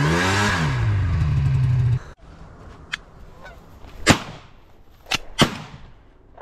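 A snowmobile engine revving up and down, cut off abruptly about two seconds in. Then, over faint goose honking, three shotgun shots, the last two close together.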